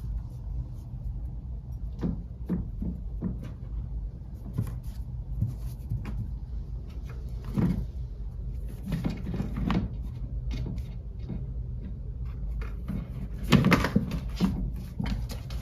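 A cat batting a SmartyKat Skitter Critters catnip mouse around a hardwood floor: scattered soft taps, scuffs and knocks of paws and toy. A louder cluster of knocks comes near the end as the cat pushes against the legs of a small wooden stand.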